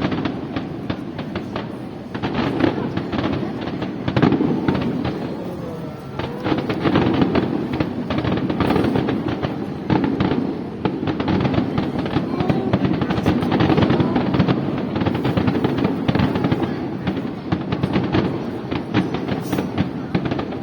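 Aerial fireworks bursting in rapid succession: many sharp bangs and crackles overlapping throughout.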